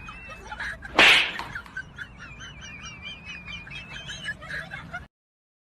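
Small birds chirping and trilling, with one short, loud noisy burst about a second in; the sound cuts off suddenly about five seconds in.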